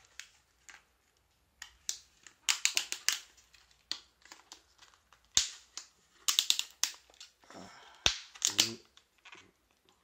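The packaging of a new DDR3 laptop RAM module being handled and opened: clusters of sharp crackles and clicks, with quiet gaps between them.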